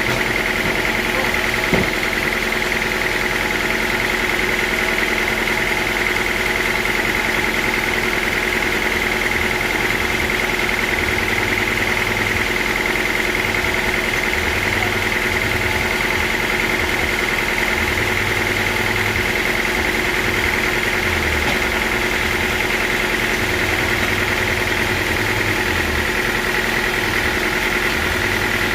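Sawmill saw running steadily, a constant high whine over a lower machine hum, with a faint low drone that comes and goes in the second half.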